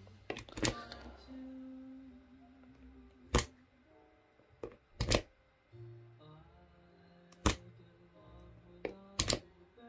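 A series of sharp clicks, roughly every two seconds, as the LED strip's power is switched off and on again and again to put its Tuya Wi-Fi controller into pairing mode. A man hums a tune softly between the clicks.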